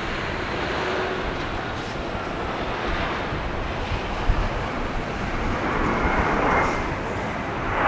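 Cessna 680 Citation Sovereign business jet's turbofan engines running, heard as a steady rushing roar, with a faint high whine coming in near the end and a brief click about four seconds in.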